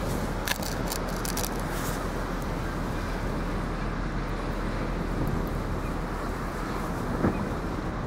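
Steady low drone of a passing tanker barge's engine, mixed with wind rushing on the microphone. A few light clicks come in the first two seconds.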